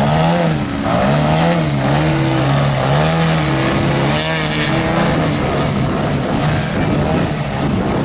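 Radio-controlled aerobatic plane's motor and propeller holding a nose-up hover, the pitch rising and falling about once a second as the throttle is worked to keep it hanging on the prop. It steadies after about five seconds.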